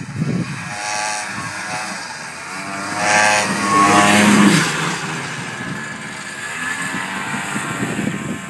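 Ski-Doo Tundra II snowmobile's two-stroke engine revving as the sled plows through deep powder. Its pitch rises and falls, and it is loudest about three to four and a half seconds in as it passes close by.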